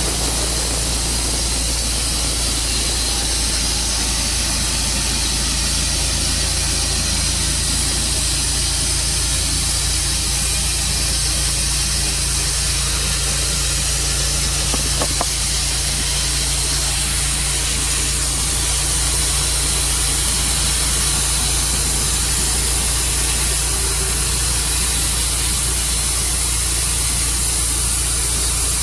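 Tru-Cut sawmill running steadily while sawing a walnut log: a constant engine drone under a strong, even hiss.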